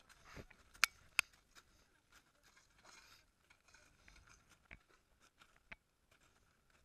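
Footsteps of trekkers in steel crampons crunching on glacier ice: soft, irregular crunches and clicks, with two sharp clicks close together about a second in.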